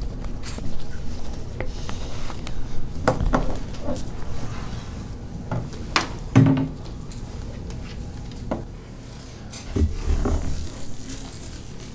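Scattered knocks, clunks and rustling in a room as people get up and move about after a meeting ends. The loudest clunk comes about six seconds in.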